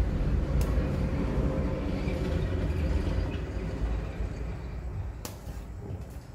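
A steady low rumble that fades over the last couple of seconds, with two sharp metal clinks of a steel ladle against a pot or bowl, one near the start and one about five seconds in.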